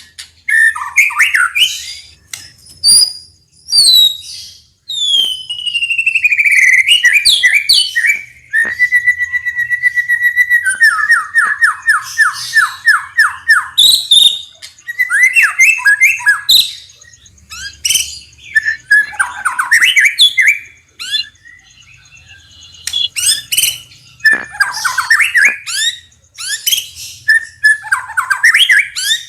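White-rumped shama singing a long, varied song of loud whistled phrases. About a third of the way in, a held whistle breaks into a fast run of repeated notes, and harsh rattling chatter is mixed in throughout.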